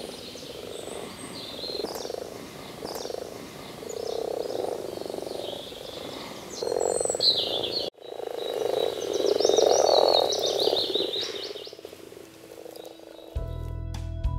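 Breeding chorus of common frogs in a pond: a low, rough croaking from many frogs at once, with birds chirping above it. There is a sudden cut about eight seconds in, and guitar music starts near the end.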